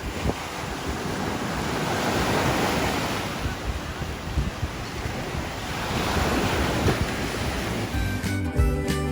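Surf breaking on a beach, with wind buffeting the microphone; the wash of the waves swells and eases. Background music comes in near the end.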